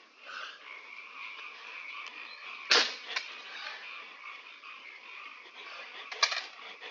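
A steady background chorus of small calling animals, with two sudden loud noises on top: a sharp crack about three seconds in and a short rattle of clicks about six seconds in.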